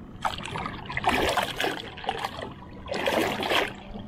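A tarpon splashing at the water's surface as it is held by the lower jaw beside the boat, water sloshing and spattering in three bursts, the longest in the middle.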